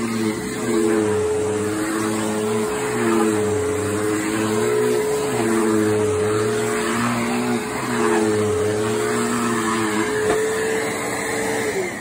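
Bissell PowerForce bagged upright vacuum cleaner running on a rug. Its motor pitch dips and recovers in a regular rhythm about every second and a half as it is pushed back and forth. Near the end the pitch falls away and the sound dies down.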